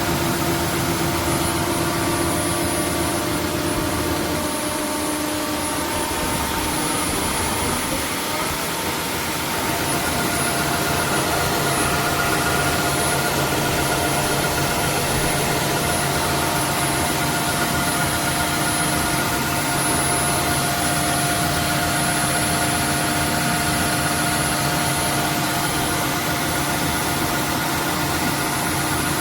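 A roborock F25 cordless wet-dry vacuum running steadily with a motor whine; its pitch pattern changes about ten seconds in.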